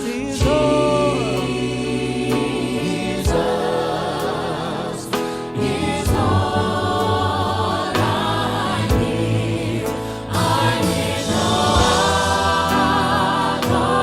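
Gospel choir singing with instrumental accompaniment, voices holding and bending long sung notes.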